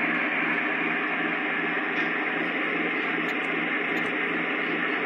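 Steady diesel idle rumble with hiss, played through the small onboard speaker of a Lionel ES44AC model locomotive after its start-up command.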